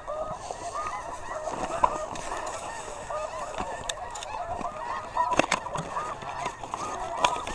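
Snow goose calls: many short, high yelping honks overlapping in a continuous chorus. A few sharp clicks and knocks of handled gear sound over it, the loudest about five seconds in.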